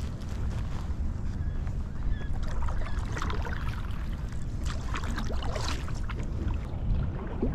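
Water splashing and trickling around a kayak on a small creek, in irregular clusters, over a steady low rumble.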